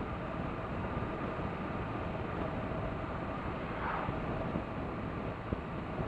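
Steady wind rush and road noise on the move aboard a 2017 BMW R1200RT motorcycle, with the hum of its boxer-twin engine at an easy, even cruising pace.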